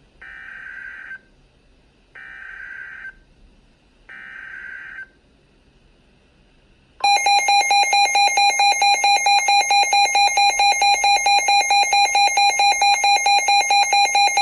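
Midland NOAA weather radio playing an emergency alert: three buzzy SAME data bursts of about a second each, two seconds apart, that encode a tornado warning. About halfway through, the radio's own loud pulsing warning alarm sounds at about five beeps a second.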